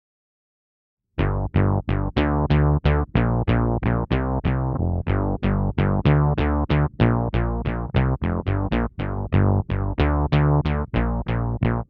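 Electric bass (Fender Jazz) played through a Source Audio C4 Synth pedal on a synth patch, starting about a second in. It plays a quick, even run of about four notes a second, and each note starts bright and quickly turns dull.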